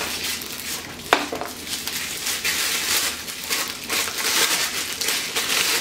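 Plastic packaging crinkling and crackling as it is handled and pulled off an item, in irregular handfuls, with one sharp click about a second in.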